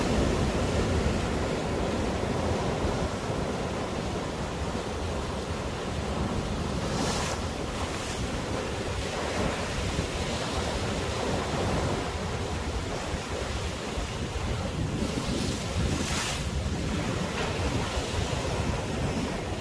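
Sea waves breaking and washing up a sandy beach, with sea wind buffeting the microphone as a low rumble. The wash swells twice into a louder hiss, about a third of the way in and again near three-quarters.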